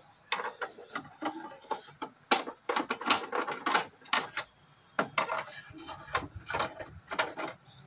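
Irregular clicks, knocks and scrapes of a plastic boombox cabinet being handled, with a screwdriver working at the screws of its back panel.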